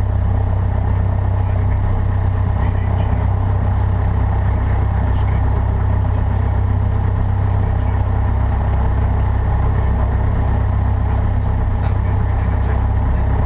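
Cessna 152's four-cylinder Lycoming O-235 piston engine running at a steady, unchanging speed, a constant low drone with no rises or falls.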